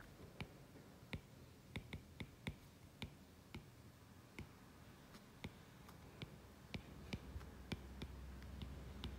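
Faint, sharp taps of a stylus tip on a tablet's glass screen during handwriting, coming irregularly at about one or two a second.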